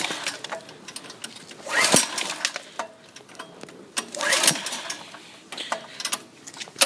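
Recoil pull-start cord of a Champion generator's 196cc engine being yanked twice: each pull cranks the engine with a short rattling whirr but it doesn't catch, cold on choke. A third pull begins right at the end.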